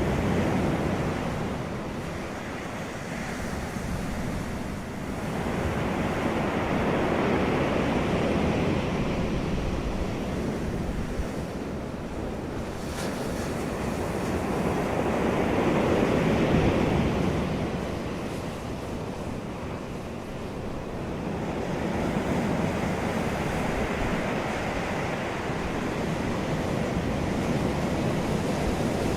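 Ocean surf washing ashore in slow swells, each surge rising and falling away about every seven to eight seconds.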